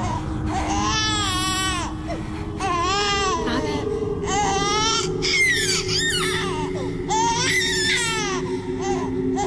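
A child crying: five high, wavering wails of about a second each, with short gaps between them, over a low steady drone.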